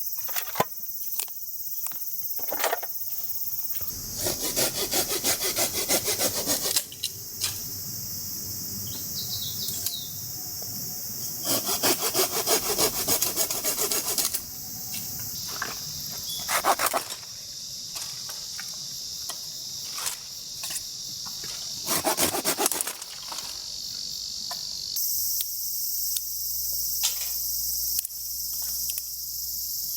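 Silky Gomboy folding hand saw cutting wood in several bouts of quick back-and-forth strokes, with insects calling steadily throughout.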